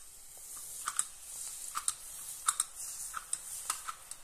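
Karappusa dough of rice flour and urad dal frying in hot oil in a kadai, with a steady sizzling hiss and irregular sharp crackles and pops. The oil is fully heated.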